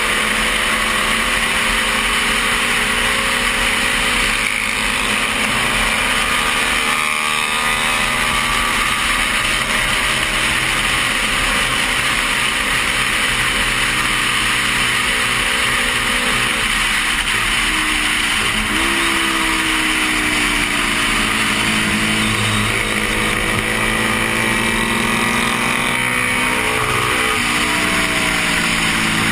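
A 1972 Honda CB350's parallel-twin engine runs hard at high revs under race throttle, heard from the rider's helmet with wind rush over it. Its pitch holds steady at first, then dips and climbs again a few times in the second half.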